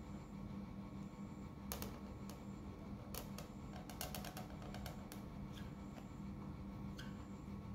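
Calligraphy pen nib scratching faintly on paper as it draws a long stroke, with scattered irregular ticks, over a low steady hum.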